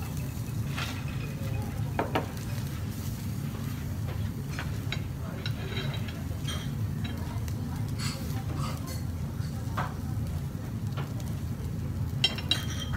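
Wagyu slices sizzling on the wire mesh of a tabletop gas yakiniku grill, over a steady low hum. Scattered light clicks of tongs and chopsticks on the grill and the dishes come through, with a small cluster of them near the end.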